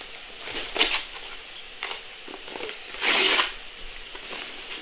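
Paper and plastic packaging being handled and opened: scattered rustles, crinkles and small clicks, with one louder rustle lasting about half a second about three seconds in.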